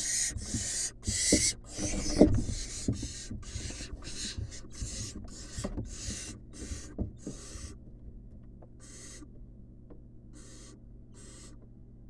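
Barn owl owlets' begging calls: short hissing rasps repeated about two to three times a second, then spacing out and growing fainter after about eight seconds. Scuffling knocks and thumps against the wooden nest box come through the first half.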